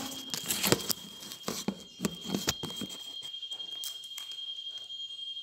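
Hands kneading and handling a lump of plasticine close to the microphone: soft rubbing with several small taps and clicks in the first three seconds, then quieter. A faint steady high-pitched tone runs underneath.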